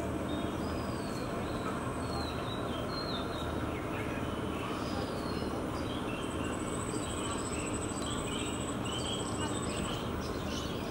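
Outdoor ambience of birds chirping over a steady low rumble, with a high, fast-pulsing trill lasting about four seconds from past the middle.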